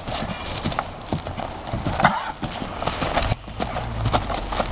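Horse's hooves clip-clopping steadily on arena footing as the mare is lunged, with one short cough from the horse about two seconds in.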